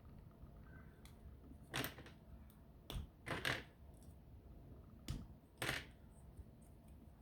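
Plastic Lego Bionicle parts being pulled apart and unclipped by hand: about six sharp clicks and snaps at irregular intervals, several in quick pairs.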